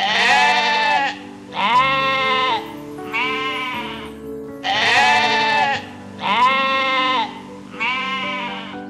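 An animal calling six times in two runs of three, each call about a second long and rising then falling in pitch, over soft background music.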